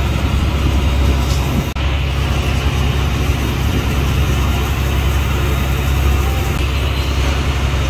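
A fishing boat's engine running steadily, a low drone under a broad, even hiss.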